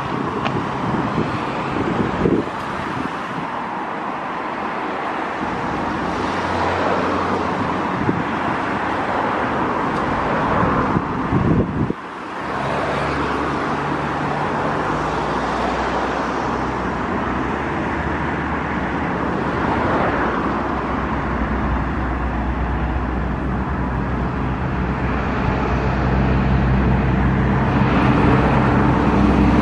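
Steady rumble of a Condor Airbus A330neo's jet engines as the airliner climbs away after takeoff, heard with road traffic. The level dips briefly about twelve seconds in.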